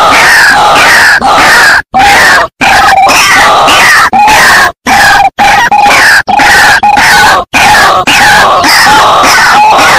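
White-breasted waterhens (ruak-ruak) calling in a loud, harsh series of repeated croaking notes, a lure recording used to draw the birds in. The calls cut off into brief dead silences several times where the recording is spliced.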